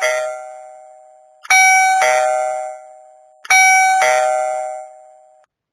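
Electronic doorbell chime of the Geekam wireless video doorbell being tested. A chime note dies away, then a two-note ding-dong sounds twice, about two seconds apart, and the last one cuts off suddenly near the end.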